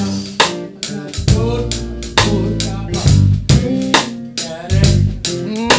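Drum kit playing a steady groove, snare and bass drum hits about two to three a second, over sustained electric keyboard chords.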